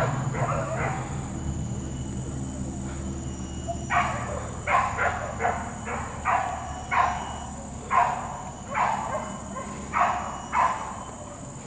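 Hunting dogs barking: a run of short barks, about two a second, starting about four seconds in and stopping near the end.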